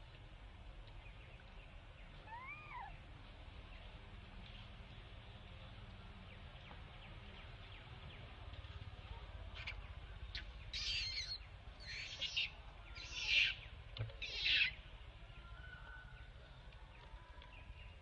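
Animal calls over a quiet background: one thin squeak that rises then falls in pitch about two and a half seconds in, then, from about ten seconds, four short, harsh calls about a second apart, the last two loudest.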